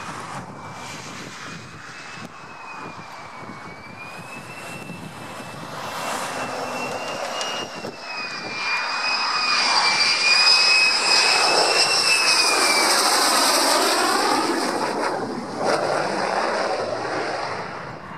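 Lockheed Martin F-35A Lightning II on a gear-down landing approach: its single Pratt & Whitney F135 turbofan gives a high, wavering whine over rushing jet noise. The sound grows louder as the jet closes in, is loudest from about ten to fourteen seconds in, then eases slightly.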